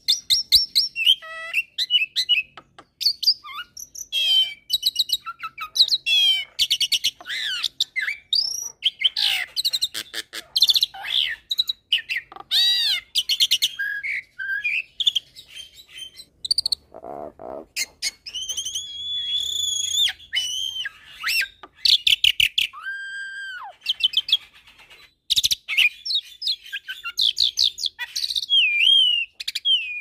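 A Jalak Nias × Jalak Suren hybrid starling (common myna × Asian pied starling) singing a fast, varied song of high whistles, rattling trills and clicks. About two-thirds of the way through come several long whistled notes, held steady.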